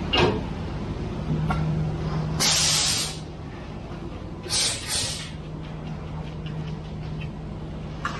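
Ready-mix concrete truck running steadily with a low engine hum while concrete runs down its chute. A sharp knock comes right at the start, and two short bursts of hissing come about two and a half and four and a half seconds in.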